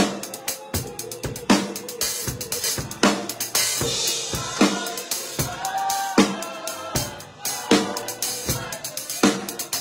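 Drum kit played with sticks in a steady groove: strong snare and bass-drum accents about every second and a half, lighter strokes and hi-hat in between, and a cymbal wash near the middle.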